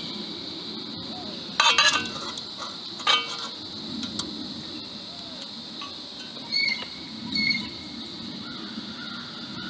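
Aluminium backpacking cook pot and its wire handle clattering and clinking as the pot is set onto a canister gas stove. A loud rattle comes about two seconds in, a sharp clink follows a second later, and two short ringing clinks come later on. A steady high insect buzz runs underneath.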